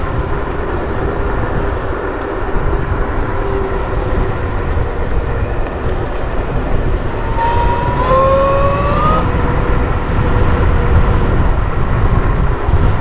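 Rovoron S7 84 V 8000 W electric scooter riding, its motor giving a thin whine over a steady low rumble of wind and road noise. About eight seconds in the whine climbs in pitch for a second or so as the scooter speeds up, then settles back.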